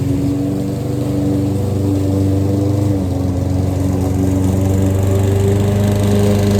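Gas lawn mower engine running steadily while mowing; its speed sags slightly about halfway through, then picks back up near the end.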